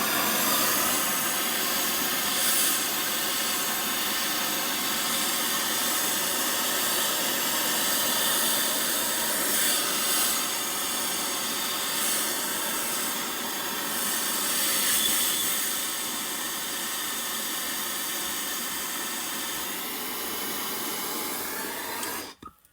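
Plumbing gas torch burning with a steady hiss while it heats a fluxed copper pipe joint for soldering; the flame is shut off near the end.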